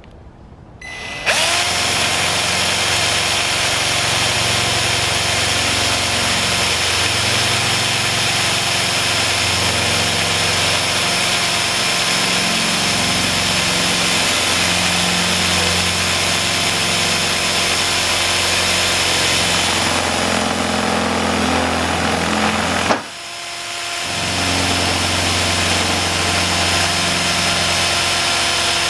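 Drill press starting up about a second in, its motor running steadily with a steady whine while a twist bit drills through a fiberglass tube. Near the end the motor cuts out briefly and spins back up.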